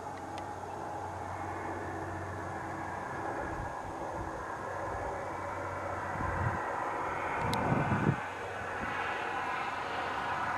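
Engine drone of a passing vehicle, swelling to a peak and then easing off, with a couple of low thumps about six and eight seconds in.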